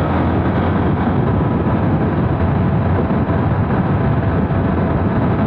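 Steady rush of wind and road noise while riding a motorcycle at speed, with the bike's engine running under it.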